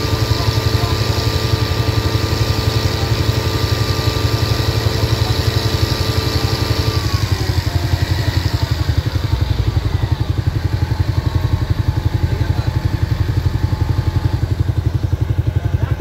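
Heavy diesel machine engine running with a steady low throb; a high whine over it slides down in pitch and fades about seven seconds in.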